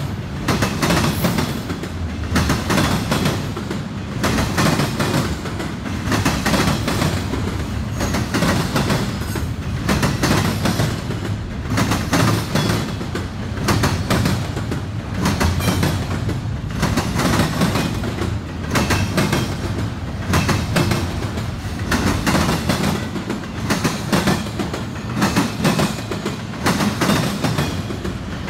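Double-stack intermodal well cars rolling past at speed. Their wheels clatter over the rail diamond crossings in groups of sharp knocks about every one and a half to two seconds, over a steady rumble.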